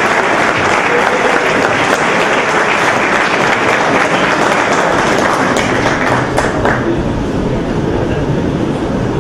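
Audience applauding, a dense patter of many hands clapping that thins out and dies away after about six or seven seconds.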